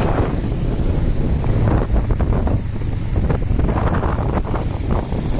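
Wind rumbling on the microphone while moving through traffic, with a vehicle engine running underneath.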